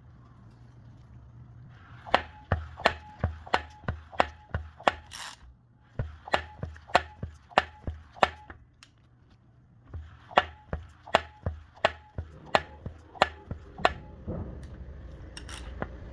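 Subaru engine knocking: sharp, loud knocks about three a second, in three runs separated by short pauses, over a low steady hum.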